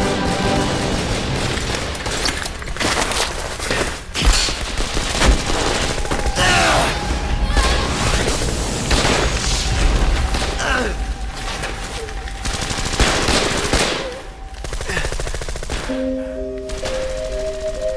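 Film gunfight sound mix: rapid automatic gunfire and many shots over background score music. The shooting thins out near the end, leaving the music.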